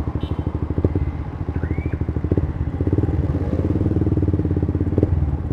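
Motorcycle engine running at low speed with a steady, even pulsing beat as the bike rolls slowly over rough ground, with a few soft knocks.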